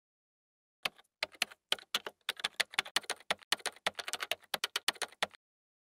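Typing on a computer keyboard: a quick, uneven run of key clicks that starts just under a second in and stops shortly before the end.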